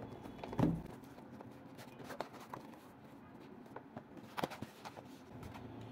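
Quiet handling of a cardboard smartwatch box: a soft thump about half a second in, then faint scraping and a few sharp taps as the inner box is slid out of its printed sleeve.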